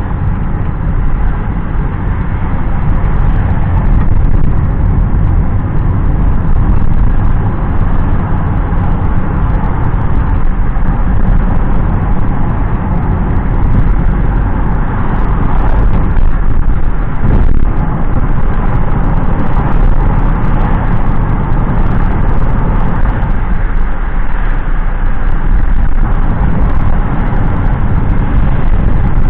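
Steady road noise of a moving car heard from inside the cabin: a low rumble of tyres and engine with no sudden events.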